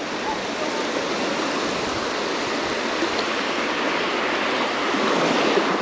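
Gentle surf washing up onto a sandy beach at the water's edge, a steady rushing wash that swells a little near the end.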